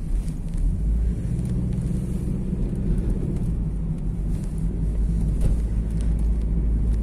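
Steady low rumble of a car being driven, engine and tyre noise heard from inside the cabin.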